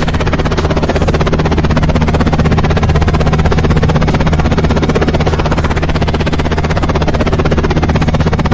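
Heavy machine's engine running steadily, a constant low hum with a fast, even pulse.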